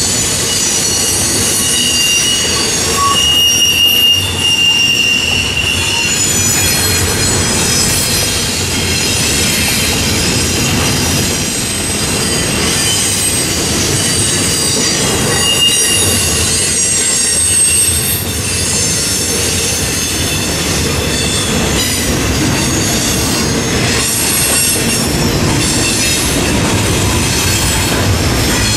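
Double-stack intermodal freight train rolling past: a steady rumble and clatter of wheels and railcars, with high-pitched wheel squeal that rises a couple of seconds in and again around the middle.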